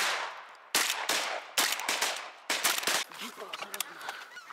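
Several hunters' shotguns firing a rapid volley: about five sharp shots in the first three seconds, some close together, each trailing off in an echo.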